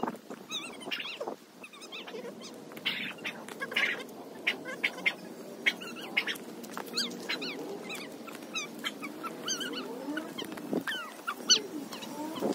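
Birds chirping with many short calls, over the rustle and crackle of dry weeds and dead leaves being pulled up by hand.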